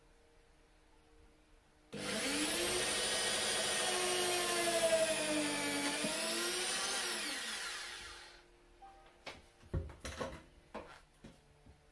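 Corded Bosch electric drill running at the wooden neck of a lever harp. It starts about two seconds in and runs steadily for about five seconds, then its pitch slides down as it winds to a stop. A few light knocks follow as it is handled.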